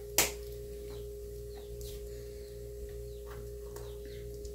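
A single sharp click or knock just after the start, then faint, short chirps of small birds scattered through the rest, over a steady low hum.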